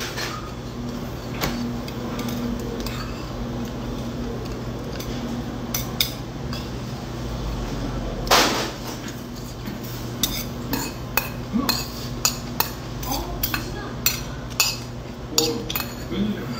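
Metal spoon and chopsticks clinking and scraping against a stainless steel rice bowl, in scattered taps that come more often in the second half. One louder burst about eight seconds in, over a steady low hum.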